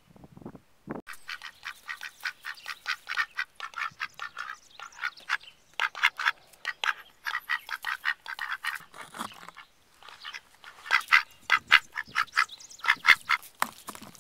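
A group of white domestic ducks quacking in a quick, continuous run of short calls, several a second, with a brief lull about two-thirds of the way through.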